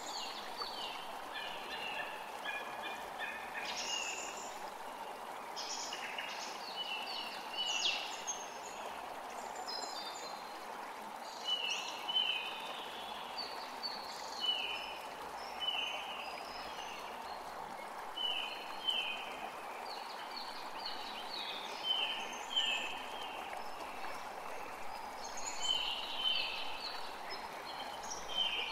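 A forest creek runs steadily under songbirds singing, short chirpy phrases and quick falling notes repeating every second or two.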